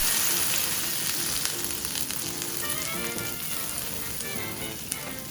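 Butter sizzling in a hot frying pan as brioche burger buns toast in it. The sizzle slowly eases off.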